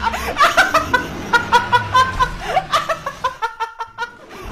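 A young woman laughing hard in rapid, high-pitched bursts, about four a second, trailing off near the end.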